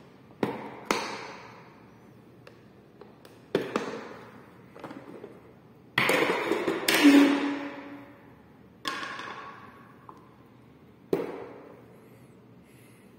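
Plastic lids and stainless steel food containers of an electric lunch box warmer being opened and handled: a series of separate knocks and clatters, the loudest cluster about six seconds in, followed by a brief ring.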